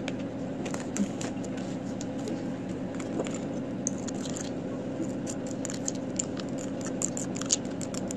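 Fine glitter pattering into a small glass cup and shifting around in it as the cup is swirled, in scattered light ticks. A steady low hum runs underneath.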